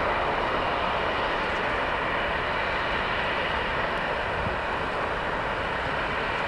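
Boeing 787-8's Rolls-Royce Trent 1000 turbofans at takeoff thrust, a steady jet roar that slowly fades as the airliner accelerates away down the runway.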